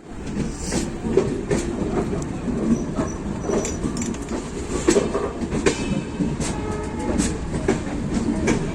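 A train rolling along the track: a steady rumble with wheels clattering irregularly over the rail joints.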